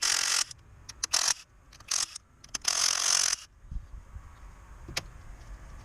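Handling noise from work on the engine's plug connectors: four short rustling scrapes in the first three and a half seconds, then a single sharp click about five seconds in.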